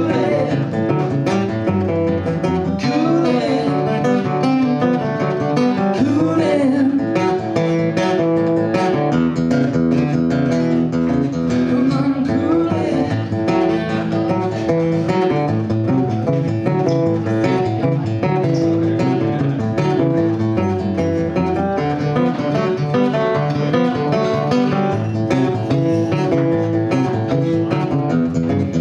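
Two acoustic guitars strummed and picked together, with singing over them at times.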